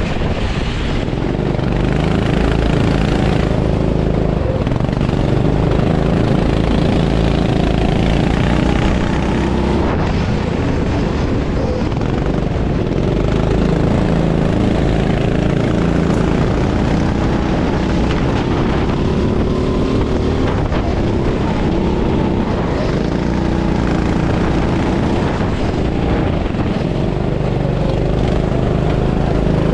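Rental go-kart engine heard onboard, revving up on the straights and dropping back when lifting for corners, its pitch rising and falling every few seconds over a steady hiss.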